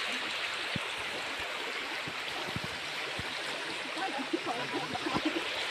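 Steady rush of flowing water from a mountain stream, with a few soft low knocks and faint voices about four seconds in.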